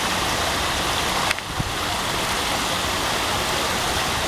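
Small park waterfall running in a steady rush of falling water, with a short knock just over a second in.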